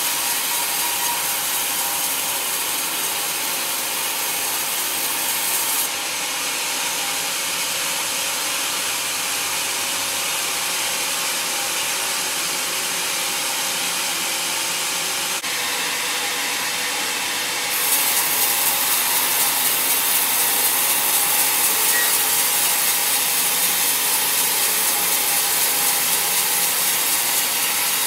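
Band sawmill blade cutting lengthwise through a rotten, worm-holed teak log: a steady rasping hiss of the blade in the wood. It shifts abruptly a few times and is louder in the last third.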